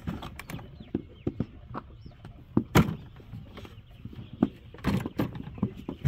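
Irregular knocks and thuds, with two louder strikes about three and five seconds in.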